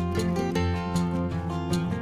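Instrumental background music with plucked guitar notes over held bass notes, at a steady level.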